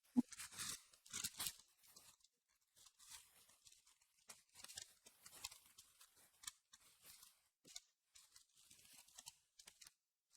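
Faint crinkling and tearing of trading-card packaging, booster pack wrappers being handled and opened, in short scattered rustles. A sharp click just after the start is the loudest sound.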